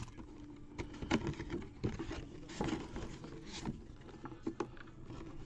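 Cardboard box being opened and handled by hand: irregular scrapes, rustles and light knocks of cardboard.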